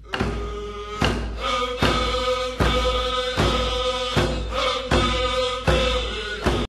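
Background music: a drum struck steadily about once every 0.8 seconds under a chanting voice holding long notes. It stops abruptly near the end.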